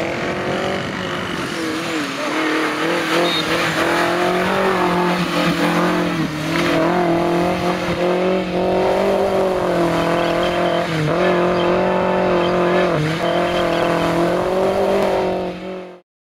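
Engine of a caged Suzuki Samurai off-road 4x4 revving hard under load. Its pitch holds high with several brief dips as the throttle is lifted and reapplied. The sound cuts off suddenly near the end.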